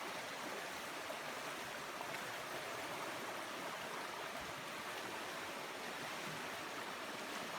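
Steady, even rush of running water: a fishing spot swollen and flowing with floodwater after heavy rain.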